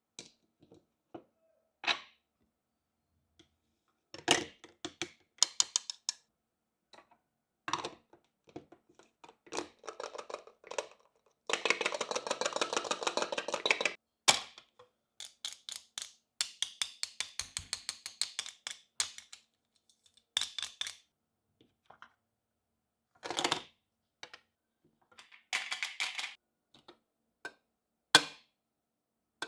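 Small plastic toy-kitchen pieces and their packaging being handled: a run of sharp clicks, taps and crackles, with a longer stretch of rapid crackling about halfway through.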